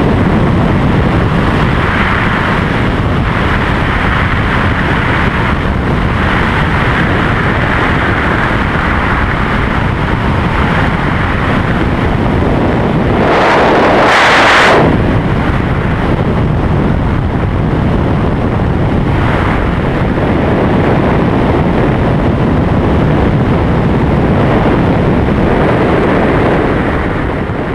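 Steady rush of freefall wind blasting over the camera's microphone, swelling louder for a second or two about halfway through.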